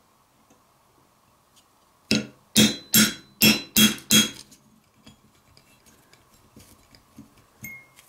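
Six quick hammer strikes on a steel pin punch, ringing metallically, driving a pin out of a rusty pocket-knife liner resting on a steel block. Faint light clicks follow near the end.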